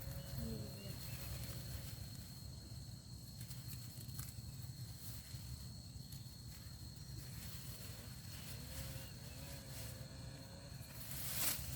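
Quiet outdoor field ambience: a steady low hum and a steady high tone, with faint distant voices near the start and again toward the end, and a burst of rustling noise just before the end.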